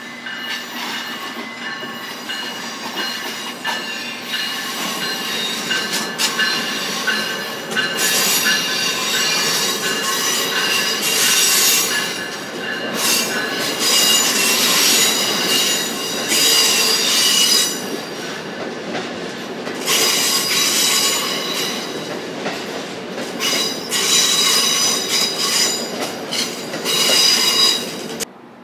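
Amtrak passenger train rolling past, its wheels squealing on the rails in several high tones that come and go over a steady rumble, loudest in the second half. The sound cuts off abruptly just before the end.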